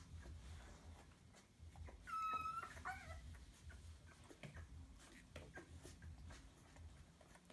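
Week-old Entlebucher Mountain Dog puppy crying: a high squeal about two seconds in, then a shorter wavering whimper, with faint clicks and shuffling around it.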